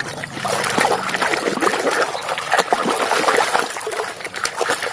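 Water splashing and trickling in many small, irregular splashes as a muddy toy is washed by hand in clean water.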